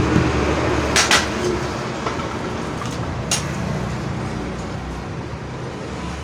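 Hammer tapping the dust seal into a motorcycle front wheel hub: two quick taps about a second in and one more a couple of seconds later, over a steady low background rumble.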